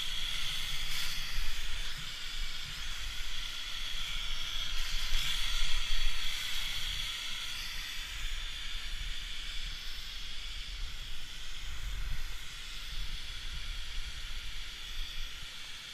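Snowmaking guns blowing, a steady hiss, with wind rumbling on the camera microphone as the skier passes through the spray.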